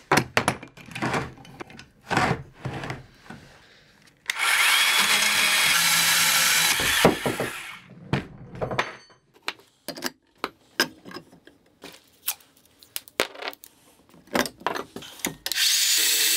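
Cordless portable band saw cutting through 12 mm steel threaded rod clamped in a vice. It runs steadily for about two and a half seconds, starting some four seconds in, and a second cut starts just before the end. In between are knocks and clicks as the rod and vice are handled.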